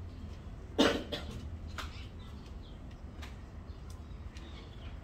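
A person coughs once about a second in, short and loud. A few faint short ticks follow over a low steady rumble.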